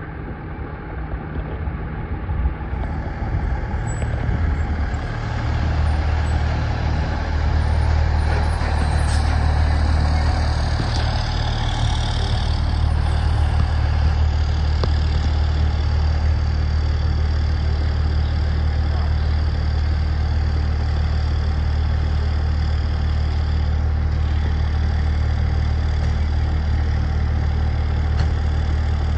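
A 2002 HME Ferrara fire engine's diesel engine running with a deep, steady hum. It grows louder over the first several seconds, then settles into a level idle, with a brief high hiss about ten seconds in.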